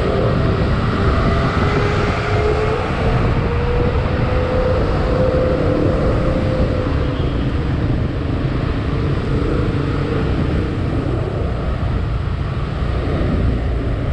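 Motorcycle riding in town traffic, heard from the rider's seat: the engine runs steadily under a dense low rumble of wind on the microphone. A humming tone drifts slowly in pitch through the first half.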